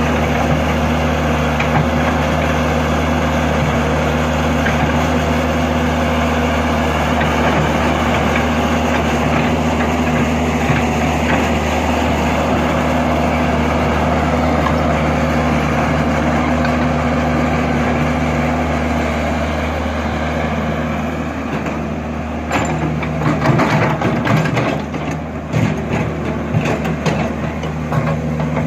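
Caterpillar 312 hydraulic excavator's diesel engine running steadily. From about three quarters of the way in, irregular metal clanks and knocks join in as the machine works.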